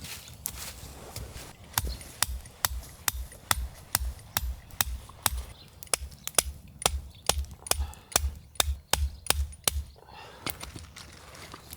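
A steady run of sharp knocks, about two a second, each with a dull thud beneath it. They start about two seconds in and stop near ten seconds.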